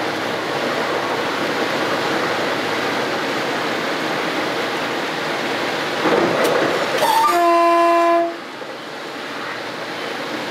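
Steady running noise in a train driver's cab. It grows louder about six seconds in, and then the train's horn sounds one steady note for about a second and cuts off sharply, after which the running noise is quieter.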